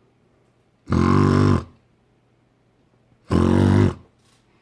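A man imitating snoring with his throat and nose: two loud snores, each under a second long and about two and a half seconds apart. The snores are made at an anti-snoring smart pillow's microphone to trigger its snore detection.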